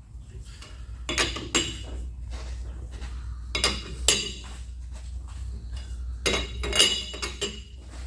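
Steel parts and tools clinking and clattering against each other in three short bursts a few seconds apart, over a steady low hum.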